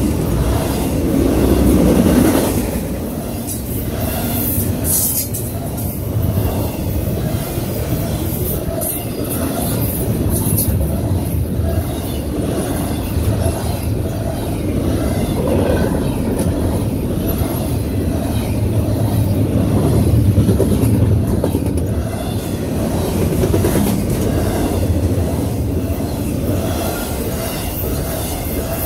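Double-stack intermodal container train's well cars rolling past: a steady rumble of steel wheels on the rail, with scattered sharp clicks and rattles.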